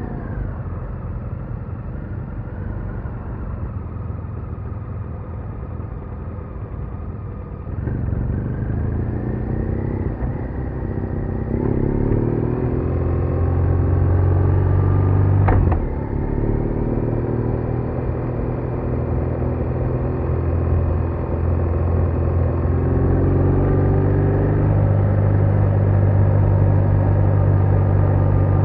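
BMW R1200R's boxer twin engine under way: the engine note falls at first, then climbs in rising sweeps as the bike accelerates, and settles to a steady run. There is a single sharp click about halfway through.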